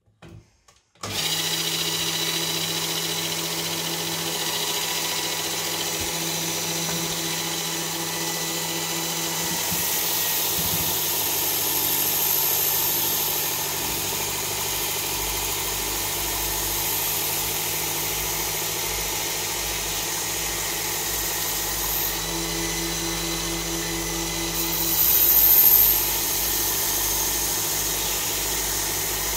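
Work Sharp Ken Onion belt sharpener with the Blade Grinding Attachment switched on about a second in and running steadily. It has a mechanical hum, and its pitch and hiss change a few times as a knife blade is drawn across the belt. There is a brief louder surge near the end.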